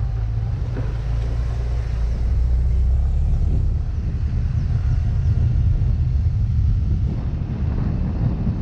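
Yamaha Mio Gravis scooter riding along, its engine drone buried under a steady low rumble of wind and road noise on the microphone.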